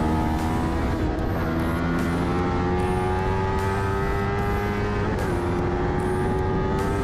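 Kawasaki Ninja 300's parallel-twin engine pulling hard under acceleration, its note climbing steadily and then dropping abruptly with an upshift about five seconds in before climbing again, over wind rush.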